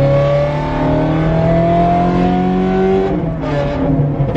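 Ferrari F430's flat-plane V8 through a straight-piped exhaust, heard from inside the cabin under hard acceleration. The engine note climbs steadily for about three seconds, then falls at an upshift.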